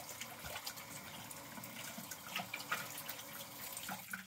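Bathroom sink tap running with hands being rinsed under the stream, splashing unevenly, then the water is turned off near the end.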